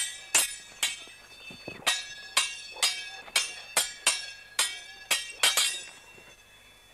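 Light fencing swords clashing, blade on blade: about a dozen sharp, ringing metallic clinks at roughly two a second, which stop about a second before the end.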